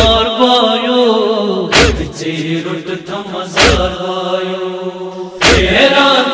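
Men chanting a Kashmiri noha, a mourning lament, over a microphone. The mourners beat their chests in unison (matam), making a heavy thud about every two seconds, four times.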